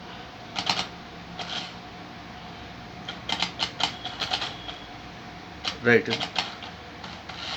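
Small hand-gesture-controlled robot vehicle driving: its geared DC motors and wheels make bursts of quick mechanical clicking and rattling, several clusters of a few clicks each. A spoken direction word comes near the end.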